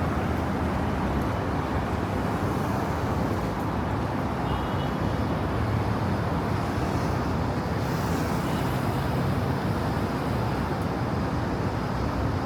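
Steady road traffic noise: a continuous low rumble of car engines and tyres.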